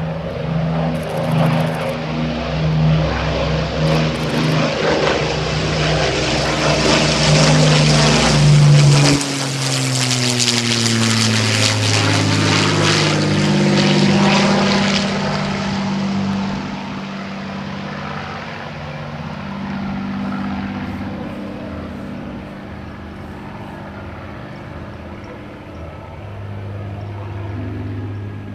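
de Havilland DH.98 Mosquito's twin Rolls-Royce Merlin V12 engines in a low flypast. The engine drone builds to its loudest about nine seconds in and drops in pitch as the aircraft passes. It then fades as it flies away and swells slightly again near the end.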